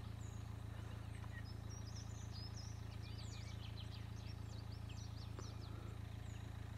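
Wild birds chirping: a scatter of short, high chirps, faint over a steady low background hum.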